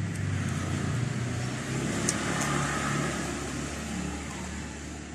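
A motor vehicle engine running steadily with a low hum, fading away over the last couple of seconds. Two faint clicks come about two seconds in.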